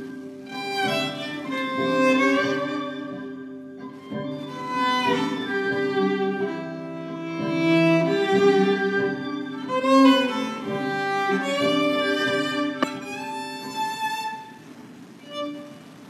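Solo violin playing a flowing melody over a steady held low drone, fading out near the end. A single sharp click sounds about thirteen seconds in.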